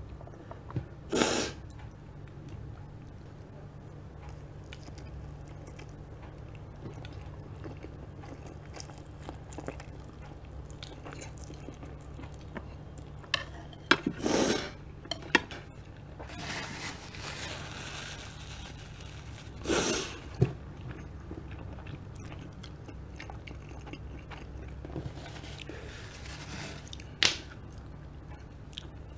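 A person eating a plate of spicy instant noodles: quiet chewing, broken by a few short, louder mouth sounds about a second in, around halfway, and again a few seconds later, over a steady low hum.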